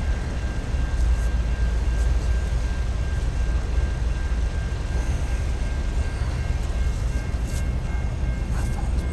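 Steady low rumble of a distant Norfolk Southern freight train led by an EMD SD60E diesel locomotive, with a thin steady high ringing from grade-crossing signals and a few faint clicks.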